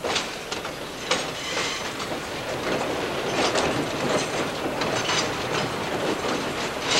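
Passenger train rolling along the track, heard from aboard: a steady rumble and rush of wheels on rail with irregular clicks and clacks.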